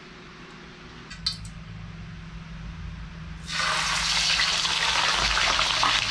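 A whole cleaned tilapia frying in hot sesame oil in a frying pan. Loud sizzling starts suddenly a little past halfway through, as the fish goes into the oil, and keeps on steadily.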